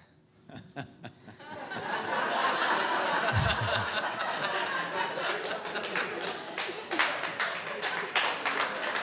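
Audience laughing, swelling up after about a second and a half, with scattered clapping joining in from about five seconds.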